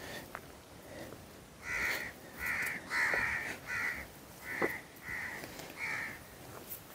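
A bird calling repeatedly, about seven short calls in quick succession starting a couple of seconds in, with a single sharp click in the middle.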